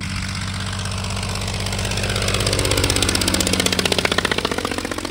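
Small ultralight aircraft engine and propeller running steadily with a fast pulsing beat. It grows louder over the first few seconds, then eases off a little.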